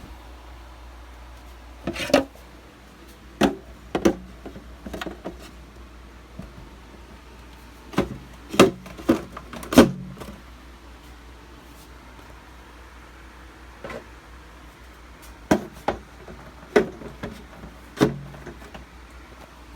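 Plastic and glass items and shelf parts knocking and clacking as they are set into a refrigerator. The sharp knocks come in loose clusters, the busiest around the middle.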